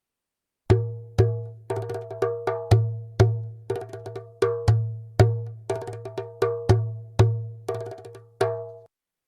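Djembe played by hand: a rhythmic phrase of strokes at about two to three a second, mixing deep booming hits with sharper ringing ones. It starts after a brief pause and stops shortly before the end.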